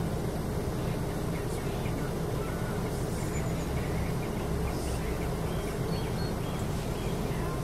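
Steady low outdoor rumble with a few faint, short high chirps scattered through it.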